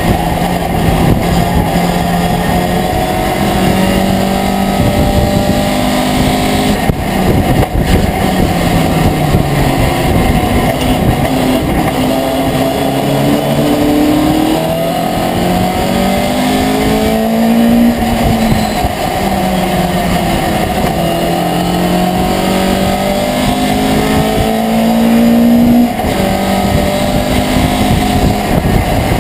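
Racing pickup truck's engine heard from inside the cab, loud throughout. It revs up through the gears in repeated rising runs and drops back between them, under a constant rumble of road and wind noise.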